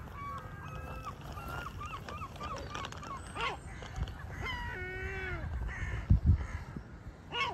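A flock of crows calling: a run of soft, short, squeaky calls in the first few seconds, then a few harsh caws, one of them long and drawn out about halfway. A low rumble runs underneath, with two low thumps shortly before the end.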